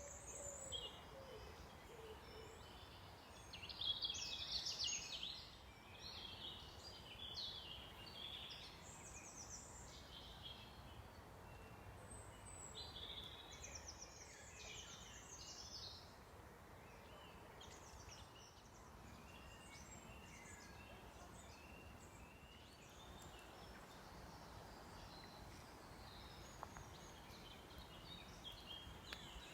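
Faint songbirds singing, short chirping phrases coming and going, with the loudest burst about four seconds in, over a low background hiss.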